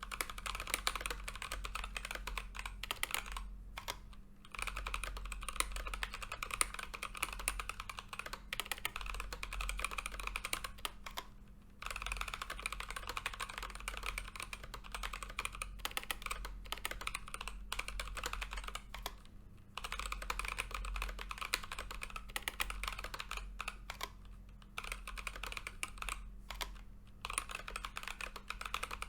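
Keychron K8 mechanical keyboard fitted with Gazzew Boba U4T tactile switches, typed on quickly and continuously. The keystrokes run as a dense stream of clacks, broken by a few short pauses. A faint steady low hum sits underneath.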